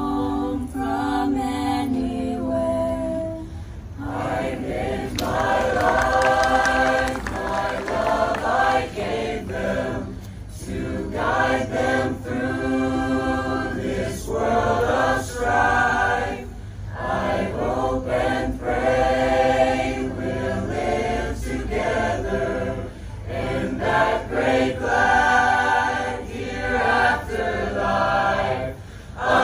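Mixed-voice high school chamber choir singing a cappella: held chords in phrases a few seconds long with brief breaths between, growing fuller about four seconds in.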